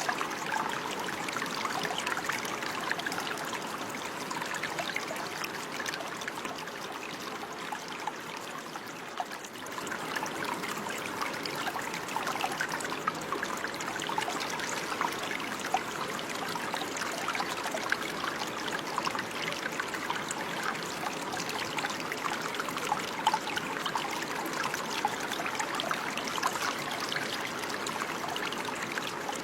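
Running water of a small stream trickling and splashing steadily, with a brief dip in level about nine seconds in.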